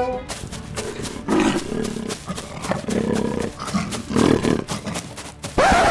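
Lion roaring again and again as a cartoon sound effect: about four rough roars, roughly a second and a half apart, the last one near the end the loudest.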